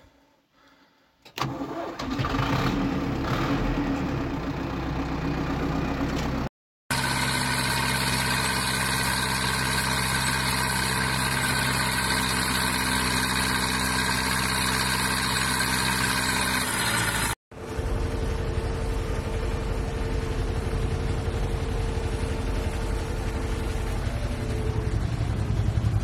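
Zetor tractor diesel engine started with the key about a second in and running. After a cut, it runs at a steady, even pitch. After a second cut, it runs rougher and lower, heard from inside the cab.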